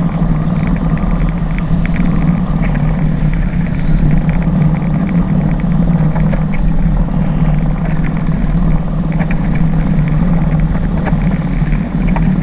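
Steady rushing wind and water noise of a small sailboat under sail, with a deep, even rumble.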